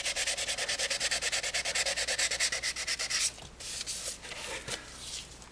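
Hand wet sanding of a primed plastic motorcycle side cover with 600-grit paper, smoothing high spots before another coat of primer. Quick, even back-and-forth strokes stop about three seconds in, followed by a few softer, scattered rubs.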